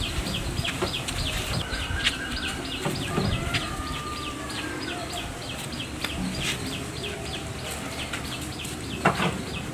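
Outdoor rural ambience: a steady train of short, high, falling chirps, about four or five a second, from a bird or insect, with a few light knocks.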